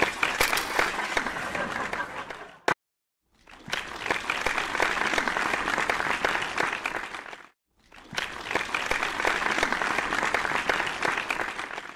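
Audience applauding, in three stretches broken by two short silences.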